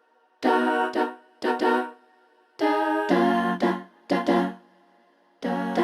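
Background music: short sung phrases with pauses between them.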